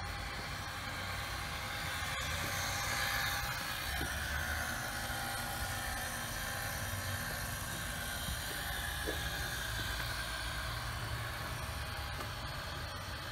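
A motor running with a steady low hum and a faint whine as an automatic roof top tent raises itself.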